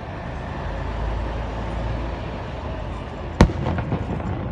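Aerial firework bursting with one sharp bang about three and a half seconds in, followed by a few fainter crackles, over steady outdoor background noise with a low rumble.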